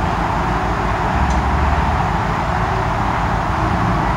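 Steady noise of car engines and traffic.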